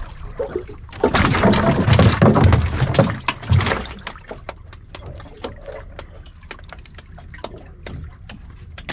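Wind and water noise on a small outrigger boat at sea, loud for a few seconds about a second in. Then comes a run of irregular light clicks while the angler winds in a hooked fish on a jigging rod and reel.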